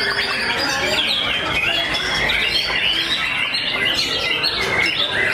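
White-rumped shamas (murai batu) singing at once: a dense, unbroken tangle of overlapping whistled phrases and trills.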